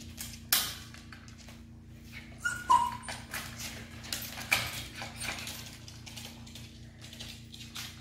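A small dog whimpering, with two short high yelps about two and a half seconds in, among scattered sharp knocks and clicks. A steady low hum runs underneath.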